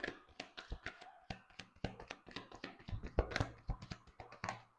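Tarot cards being shuffled by hand, a quick irregular run of soft card slaps and clicks as cards drop from one hand onto the part of the deck held in the other. The shuffling stops abruptly near the end.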